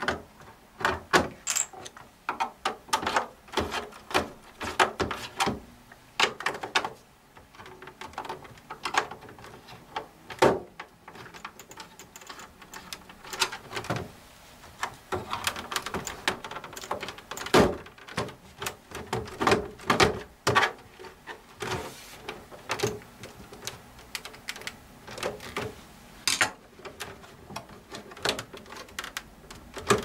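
Plastic rear cover of an HP Pro 3420 all-in-one computer being pried and worked loose: an irregular run of clicks, snaps and knocks as its latches give and the panel is handled.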